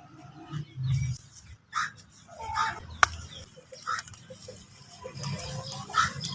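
Close-miked eating of crunchy food: a series of short, crisp crunches and bites at irregular intervals, with one sharp snap about three seconds in.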